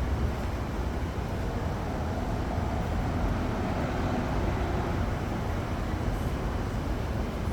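Steady city street noise: a low traffic rumble with a faint hum swelling a little in the middle.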